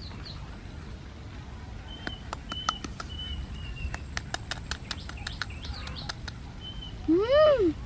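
A run of sharp clicks, about a dozen over four seconds, as a roasted duck egg's shell is knocked against teeth to crack it, with small birds chirping in short thin whistles behind. Near the end a child's voice gives one short exclamation that rises and falls in pitch, the loudest sound.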